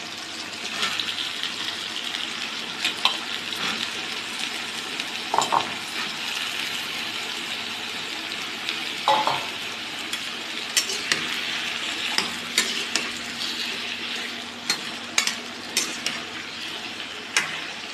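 Cubed potatoes and cauliflower sizzling in hot oil in a kadhai, with a steady frying hiss. A metal perforated spatula scrapes and clinks against the pan as they are stirred, and the clinks come more often in the second half.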